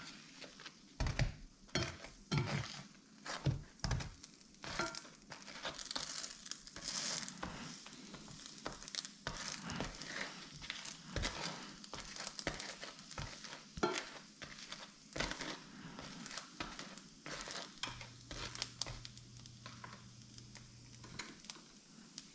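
Bagel halves toasting in butter in a stainless-steel skillet: a light sizzle under repeated scrapes and taps of a spatula pressing and moving them against the pan. The loudest knocks come in the first few seconds.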